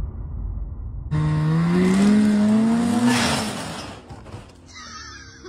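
A snowmobile engine revs hard with a steadily rising pitch for about two seconds as the sled climbs loading ramps onto a pickup's deck, then the pitch drops and the engine fades away. It is preceded by the low tail of an intro sound effect in the first second.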